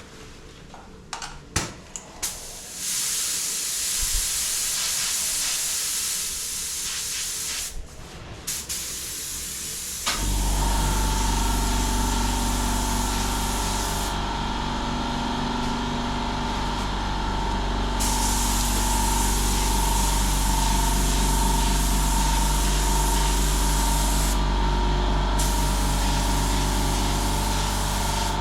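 Spray gun hissing in passes as clear coat is sprayed onto a car bumper. About ten seconds in, a motor starts and runs with a steady hum under the hiss, which stops and restarts twice.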